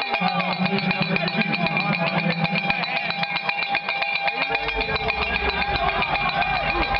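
Rapid, continuous cowbell clanking over crowd din in an indoor arena, with music mixed in. A low rumble comes in about halfway through.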